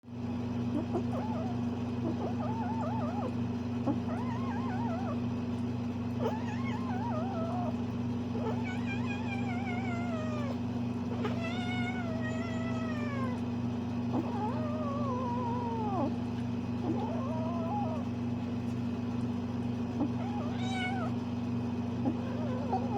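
Bengal kitten meowing and chirping over and over: a string of varied, wavering calls, with a couple of long drawn-out ones near the middle. A steady low hum runs underneath.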